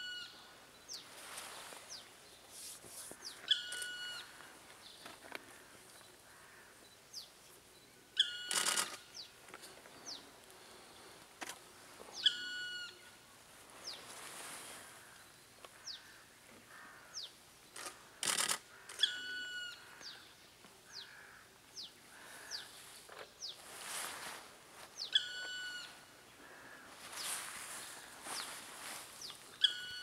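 Black woodpecker perched on a tree trunk, giving a single clear call note again and again, about every four to six seconds. Thin, high chirps of small birds sound between the calls.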